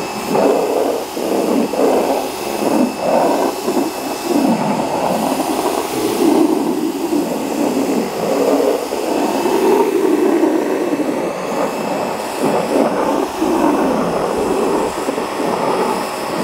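Kärcher K2 electric pressure washer running steadily, its water jet hissing under the surface cleaner attachment as it is worked over wet paving slabs.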